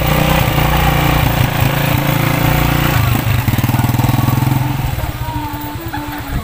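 Motorcycle engine of a sidecar tricycle running close by. Its rapid firing beat is clear about three seconds in, then the engine grows quieter as the tricycle pulls away. A few notes of music come in near the end.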